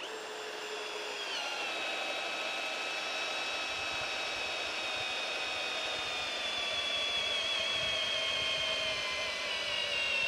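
Hilti cordless hammer drill, in drill mode on speed one, running a long wood auger bit into a log. The motor whine steps down in pitch a little over a second in, then falls slowly as the bit bores deeper and the load on the motor grows.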